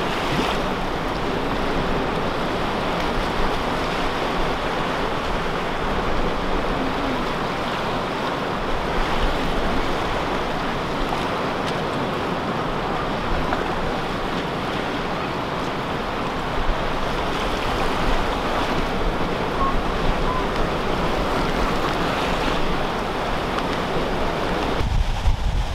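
Storm surf breaking and churning over a flooded shoreline, a steady roar driven by tropical-storm winds, with wind blowing on the microphone. Near the end the surf sound thins and low gusts of wind rumbling on the microphone grow louder.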